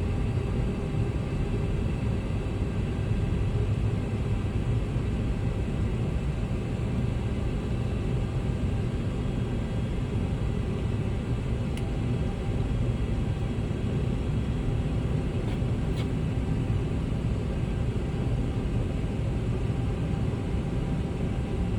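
Aircraft running steadily: a constant low rumble with faint steady tones above it, unchanging in level throughout.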